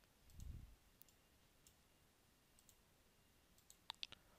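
Near silence: room tone with a few faint clicks, a soft low bump about half a second in, and a quick run of sharper clicks near the end.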